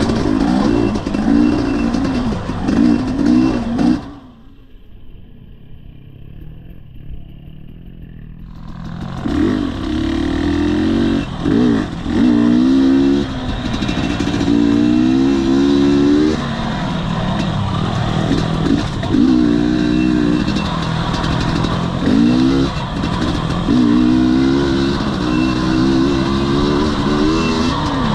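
Husqvarna TE250i's fuel-injected 250 cc two-stroke single revving up and falling back again and again as the throttle is worked while riding. For about five seconds near the start the sound drops to a low, muffled rumble, then comes back up.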